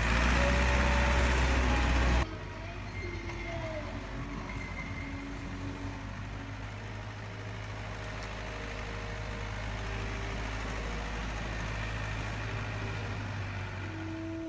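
Heavy vehicle engine running, loud for about two seconds, then cutting off abruptly to a quieter steady low hum of the engine idling.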